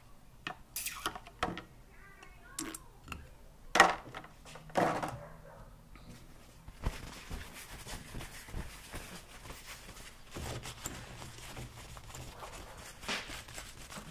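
Workshop handling sounds: a few knocks and clicks as things are set down on a metal workbench, with one sharp knock about four seconds in. Then paper towel rustles and crinkles as it wipes oil off a hydraulic bottle jack.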